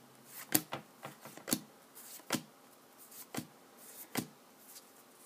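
2014 Bowman Chrome football cards being flipped through one at a time, each card slid off the stack with a short crisp flick, about one a second.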